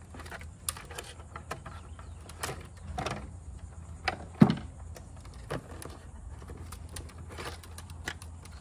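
Scattered small clicks and rattles of a screwdriver and wires being worked loose from the terminals of an electrical control box, with one louder knock about four and a half seconds in, over a steady low rumble.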